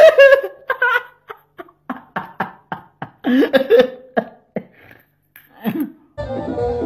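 A man laughing in a rapid run of short bursts, about four a second, broken by a few louder vocal cries. Music starts near the end.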